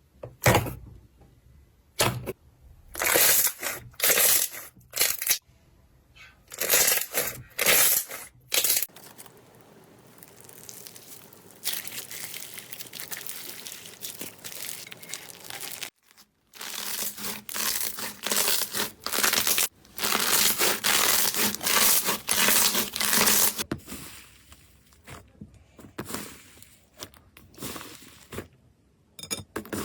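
Slime being squeezed and pressed by hand: a run of short crackling strokes, then, after cuts between clips, longer and denser stretches of crackling and crinkling.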